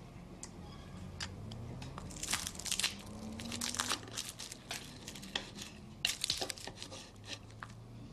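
Knife and fork scraping and clicking against a plate as food is cut, in two bouts of quick scrapes: one about two to four seconds in, the other about six seconds in.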